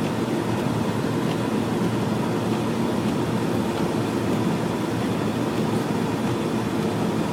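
Steady engine and road rumble heard from inside a moving vehicle's cabin, unchanging throughout.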